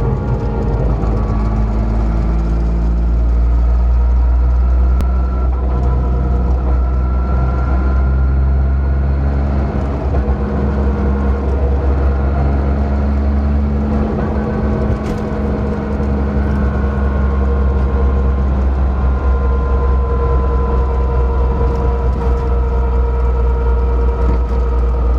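A car driving with a low metallic rumble from the front right wheel, over which several higher metallic whining tones slowly rise and fall. The owner wonders whether the hub or brake is loose or starting to fail, despite both having been overhauled, after the right front lightly hit another car.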